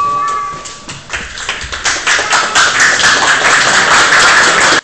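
Boxing ring bell ringing to end the round, its tone fading out about a second in; then a crowd clapping and applauding, cut off abruptly near the end.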